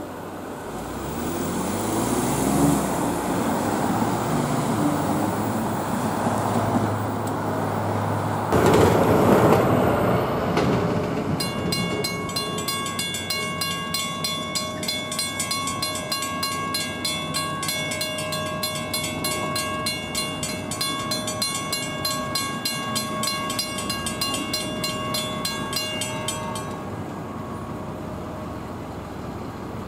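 An NJ Transit Arrow III electric multiple-unit train running, its motor pitch rising over the first few seconds. Then a railroad grade-crossing warning bell rings rapidly and steadily for about fifteen seconds while the crossing gates come down, and stops.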